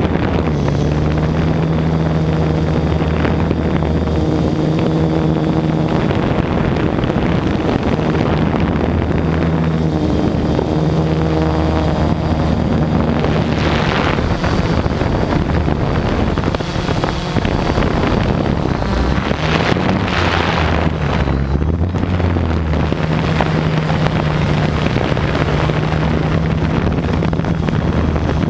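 Multirotor drone's electric motors and propellers humming steadily, heard close up, the pitch stepping up and down now and then as the drone manoeuvres. Wind buffets the microphone briefly a couple of times in the middle.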